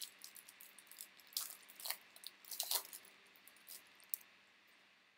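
Baseball cards being flipped through and handled: a run of irregular crisp flicks and papery rustles that thins out after about three seconds.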